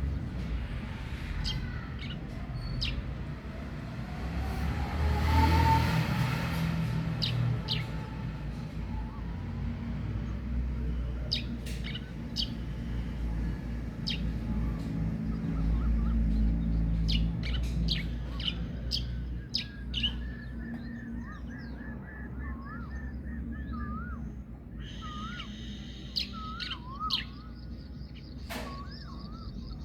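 Birds chirping, with short sharp calls throughout, wavering whistles from about two-thirds of the way in and a denser high-pitched calling near the end, over a steady low rumble.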